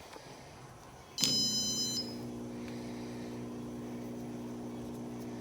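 Electrolux LTE12 washing machine control board giving one electronic beep of just under a second as a spin/drain program is selected, and at the same moment a steady electric hum starts, the drain pump switching on and running.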